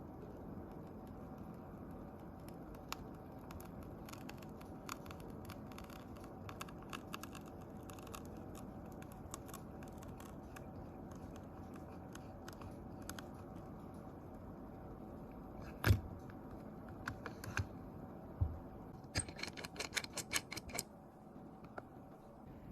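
Small repair tools clicking and tapping against a smartphone and the workbench, with one louder knock about 16 seconds in and a quick run of clicks a few seconds later, over a steady low hum.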